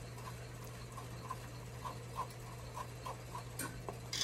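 Silicone spatula stirring a thick chocolate and peanut butter mixture in a stainless steel pot, making faint soft ticks about three times a second as it scrapes the pot, over a steady low hum.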